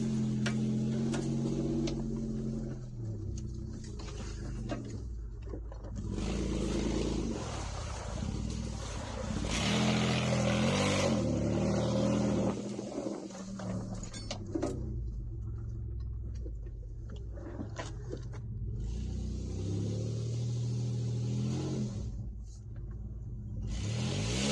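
2008 Mitsubishi Endeavor's 3.8-litre V6 engine running as the SUV crawls along a dirt trail, heard from inside the cabin, its pitch shifting with the throttle and rising near the end as it accelerates. Several stretches of louder rough noise from the tyres and the track cover the engine at times.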